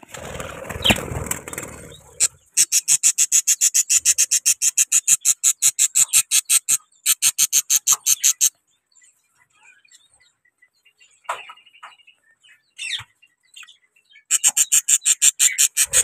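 Budgerigars in a clay nest pot giving fast, evenly repeated calls, about five a second, in two runs several seconds long. The calls come from a pair disturbed while sitting on eggs. The opening couple of seconds are rustling and scraping as the pot is handled.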